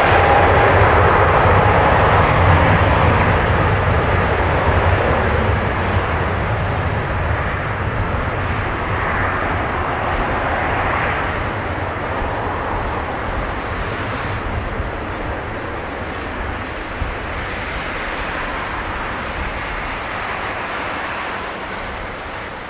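Boeing 777-300ER's GE90-115B turbofan engines running as the airliner taxis: a steady jet rumble and roar with a whine that rises slightly near the start, slowly fading over the rest of the time.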